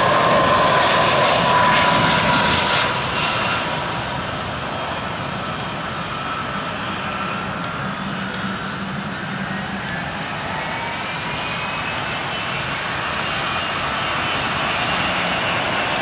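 Airbus A320-214's CFM56 jet engines on landing: a loud whine that falls in pitch as the airliner passes close, then fades after about three seconds. In the second half the engine pitch climbs and the sound grows again as the engines spool up for reverse thrust on the rollout.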